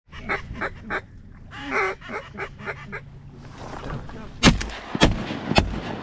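Rapid, choppy duck quacking, then three shotgun shots in quick succession, fired within just over a second about four and a half seconds in.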